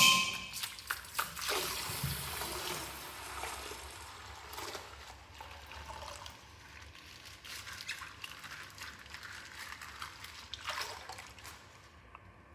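Rustling and crackling with scattered clicks as a toy's packaging is opened and handled, loudest in the first couple of seconds and then fainter.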